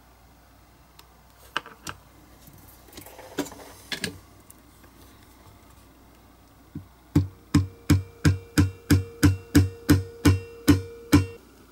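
Small hammer tapping a piece of lollipop stick clamped in the jaws of steel locking pliers, flattening it. About a dozen even strikes come just under three a second, with a metallic ring that carries on between them. A few scattered clicks come before the hammering starts.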